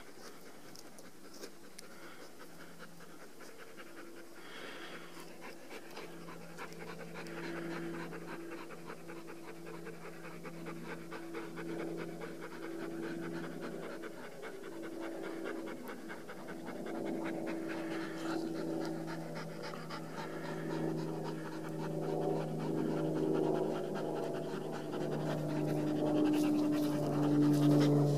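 A dog panting rapidly, growing steadily louder toward the end as it comes close, with a steady low hum underneath.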